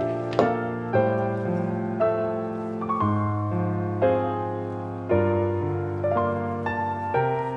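Soft solo piano background music, with notes struck one after another and left to fade.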